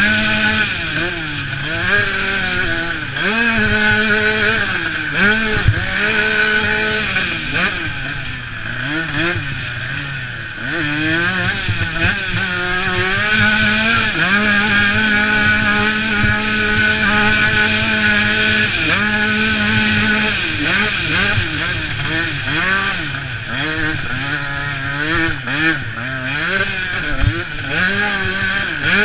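Dirt bike engine heard on board, revving up and dropping back again and again as the rider works the throttle and shifts gears around a motocross track.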